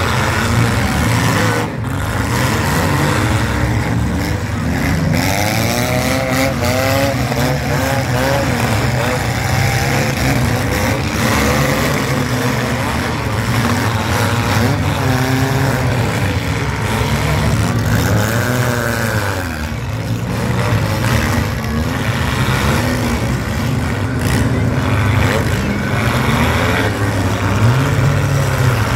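Several compact derby cars' engines revving hard over one another, rising and falling, with sharp crashes now and then as the cars ram each other.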